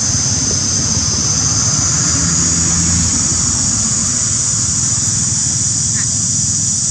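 Steady, high-pitched drone of insects, unchanging, over a low steady rumble.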